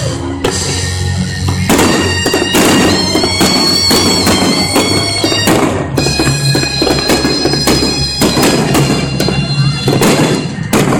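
Fireworks bursting and crackling repeatedly over music with a steady low drone and long held high notes, like bagpipes.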